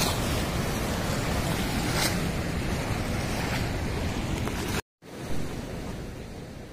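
Steady rush of water at a river weir, mixed with wind buffeting the microphone. About five seconds in it cuts off abruptly, then comes back fainter and fades out.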